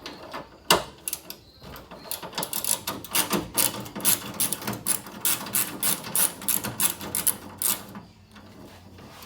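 Ratchet wrench clicking in quick repeated strokes as a 10 mm bolt holding a cooling-fan bracket is backed out. A sharp knock comes just under a second in, and the clicking runs from about two seconds to about eight.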